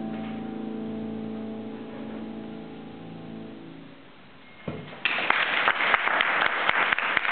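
The last chord of the song, from women's voices and piano, is held and fades away over the first three to four seconds. After a short lull and a single knock, the audience breaks into applause about five seconds in.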